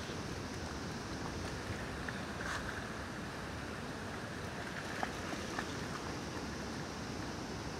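Steady rush of flowing river water, with a few light splashes as a dog wades through the shallows.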